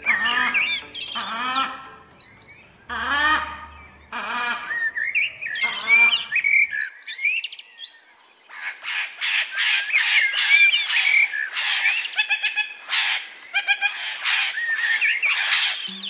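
Parrots calling: separate squawks about a second apart, then from about halfway a fast, dense run of chattering calls.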